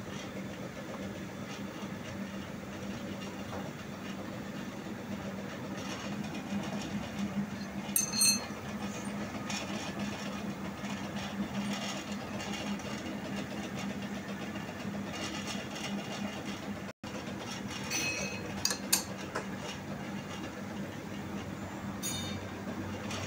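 Metal lathe running with a steady hum while a drill bores into the spinning metal bar, with cutting noise throughout. Sharp metallic clinks stand out about 8 seconds in and again around 18 to 19 seconds, and the sound briefly cuts out near 17 seconds.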